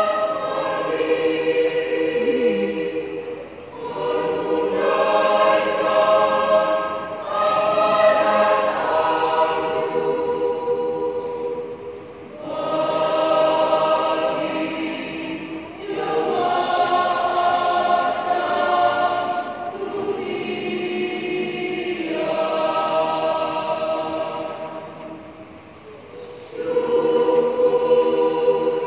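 Church choir singing in parts, holding long sustained chords in phrases that fall away briefly three times between phrases.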